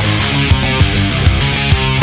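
Loud heavy-metal style rock music with distorted electric guitar over a steady drum beat.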